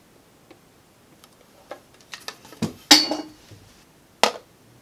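Small clicks and knocks of cosmetic bottles, tubes and a lemon-patterned tray being handled, picked up and set down. The loudest knock comes about three seconds in, with another sharp one just past four seconds.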